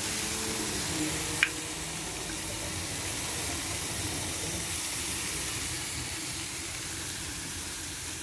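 Marinated pork and raw chicken pieces sizzling steadily on a hot grill grate, with a single sharp click about a second and a half in.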